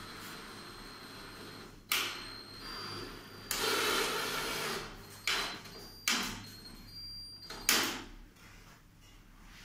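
Cordless drill-driver driving screws into the wooden boards of a birdhouse in several short bursts, with one longer run of about a second and a half near the middle.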